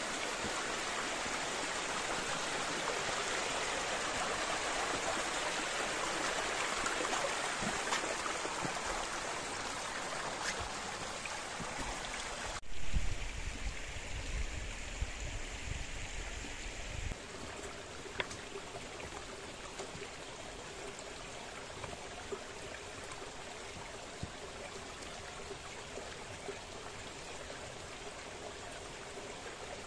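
Stream water rushing over rocks, a steady hiss. About 13 seconds in it drops abruptly to a quieter rush of water, with a low rumble for a few seconds.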